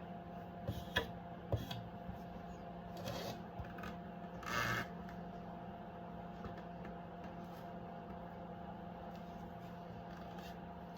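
Steady low hum with a few light clicks and short rustles in the first five seconds, like small things being handled on a kitchen counter.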